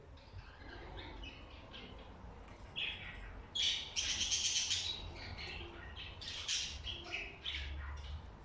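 Jumbo budgerigars chattering with short high chirps and squawks. A loud, harsh squawk lasting about a second comes about four seconds in.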